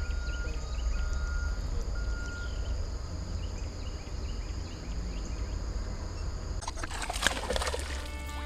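Wind rumbling on the microphone, with small birds chirping and a short whistled note repeated a few times early on. A brief rushing burst of noise comes about seven seconds in.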